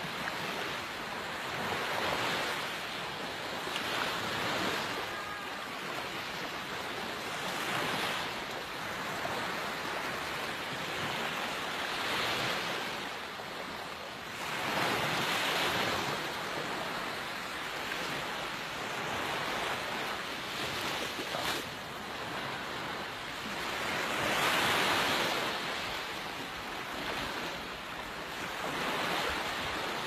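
Small waves washing up on a sandy beach. The surf swells and fades every few seconds.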